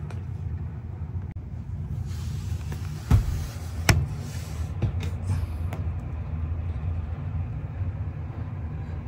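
Steady low rumble with four sharp knocks, about a second apart, from about three seconds in: tools and hands knocking against the faucet's plastic mounting nuts and the sink underside in a cramped vanity cabinet while the nuts refuse to come loose.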